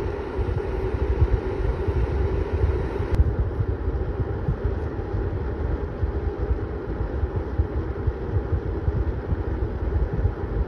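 Scythe KF9215FD25-P cooling fan running steadily inside an HDD enclosure, first at 2500 rpm with no high-pitched whine. About three seconds in, it is cut to the same fan slowed to 2000 rpm by an inline speed-reduction adapter, with less hiss; quite quiet.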